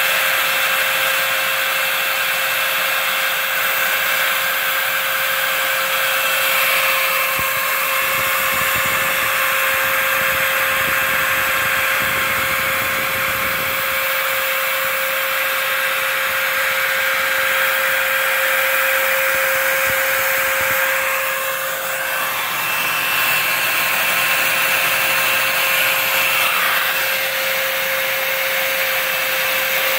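Home-built CNC router's spindle running steadily as it mills foam, a constant whine of several held tones over a steady hiss.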